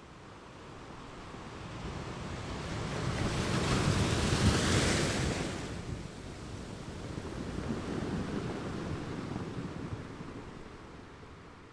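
Rushing of sea water and wind at the ocean surface: a swell of washing noise that builds to a peak about four to five seconds in and falls away, then a smaller swell that fades out.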